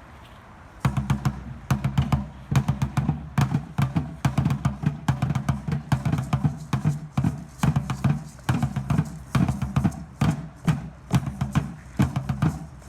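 Deep Danza Azteca drum beaten in a quick, steady rhythm, starting about a second in, with sharp clicking strokes between the booming beats.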